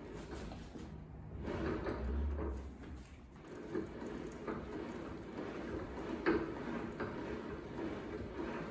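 Small metal lathe running under power as a 10 mm tap cuts a thread into an aluminium workpiece spinning in the chuck. It makes a steady mechanical sound with uneven scraping pulses from the cut.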